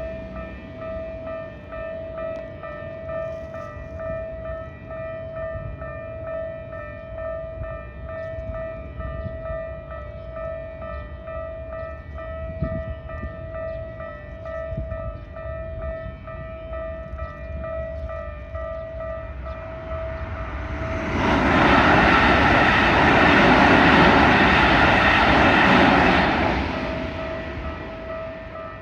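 Japanese level-crossing warning bell dinging in a steady, even rhythm. About 21 seconds in, a train passes over the crossing, loud for about six seconds and drowning the bell, which keeps ringing as the train noise fades.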